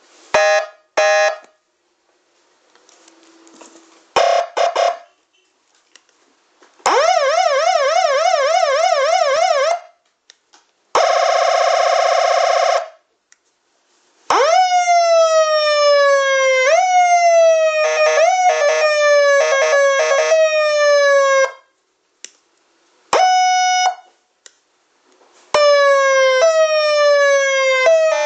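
Electronic police-escort siren module played through its tones one after another, switched by button presses. It gives short horn-like blasts, a fast warbling yelp lasting about three seconds, a steady blaring tone, then slow falling wail sweeps repeating every couple of seconds with short blasts cut in over them.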